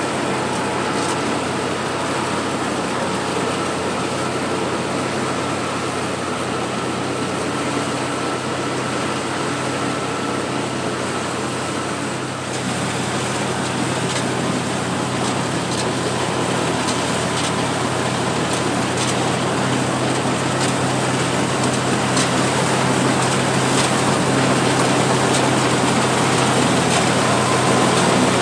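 Oliver 430 combine's engine and threshing machinery running steadily while harvesting winter wheat. The sound shifts abruptly about twelve seconds in and runs a little louder afterwards.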